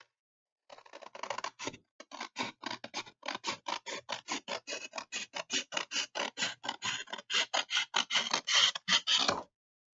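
Scissors cutting a sheet of drawing paper along a straight line in quick, even snips, about four or five a second, starting about a second in and stopping just before the end. The snips grow louder toward the end.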